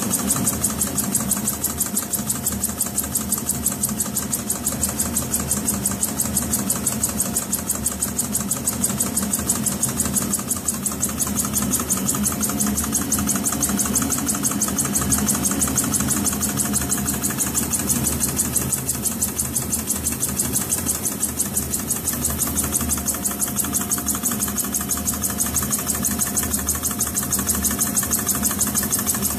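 Homemade single-cylinder vertical steam engine running steadily, fed by a hose, its exhaust beating in a rapid, even rhythm over a constant hiss.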